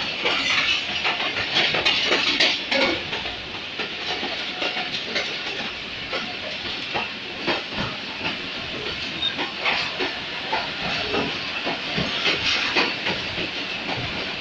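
Passenger train coach running along the track, heard from an open door: wheels knocking and clattering irregularly over the rails above a steady rushing noise.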